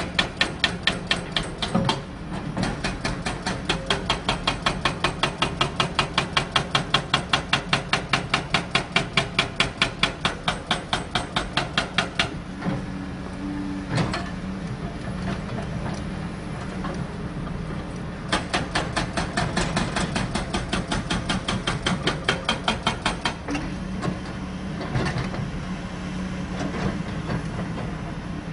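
Hydraulic breaker hammer on a CAT excavator pounding in rapid, even blows, several a second. It stops for about six seconds in the middle, leaving the excavator's engine running, then hammers again for about five seconds before stopping.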